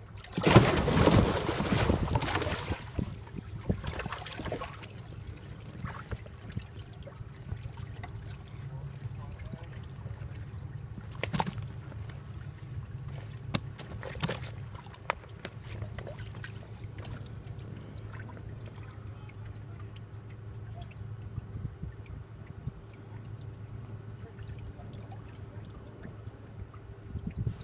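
Water splashing and sloshing in a bass boat's livewell as bass are grabbed out by hand: a loud splashing for about two seconds near the start, then scattered shorter splashes. A steady low hum runs underneath.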